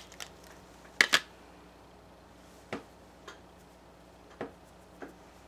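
A few short clicks and taps from handling small objects: two sharp clicks close together about a second in, then four fainter ticks spread out.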